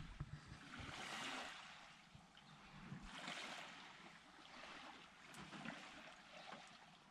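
Faint small waves lapping on a sandy beach: a soft wash of water that swells and fades about every two seconds.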